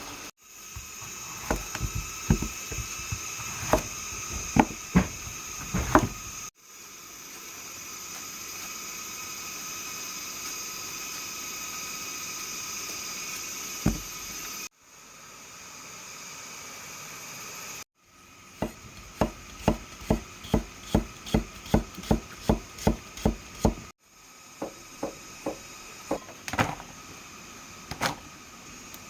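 Knife chopping on a wooden cutting board, sharp knocks, at times in a steady run of about three a second, across several clips cut together. In between there is a long steady hiss.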